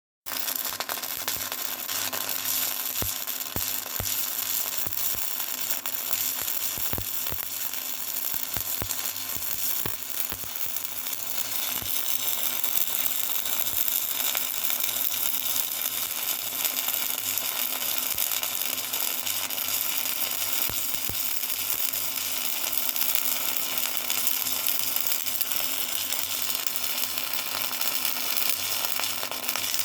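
Electric arc welding on a gear: the arc's steady crackling sizzle, with scattered sharp pops during the first ten seconds or so, over a low steady hum.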